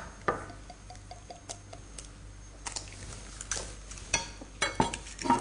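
Light clicks and taps as a raw egg is cracked on the rim of a small glass bowl and its shell is pulled apart, with small knocks of glass bowls being handled on the counter.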